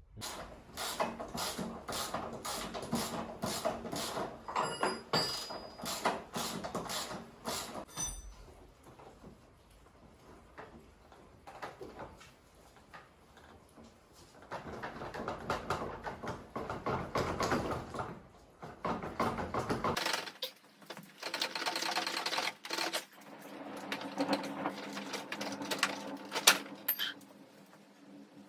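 Hand tools clicking and rattling against metal as a scooter engine is taken apart, in three spells of rapid repeated clicks with quieter pauses between.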